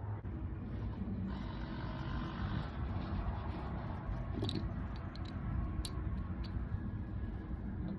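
Steady low hum with a few light clicks about halfway through, from the Harley's transmission drain plug being handled and threaded back in.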